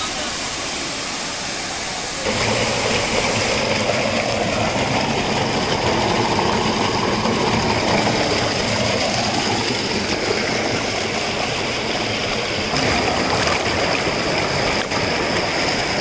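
Loud, steady rushing of muddy overflow water churning over rocks and pouring out of a culvert pipe. The sound changes abruptly twice as the shots change.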